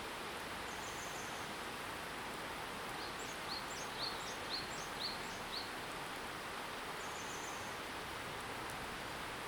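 Steady rushing background of flowing river water and wind on the microphone, with a small bird calling a quick series of short, high, upward-flicking chirps midway and two brief high trills.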